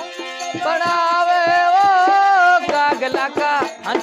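Harmonium and dholak playing a folk bhajan: the harmonium holds a melody line, then plays a quick run of short notes near the end, while the dholak keeps a steady beat of hand strokes.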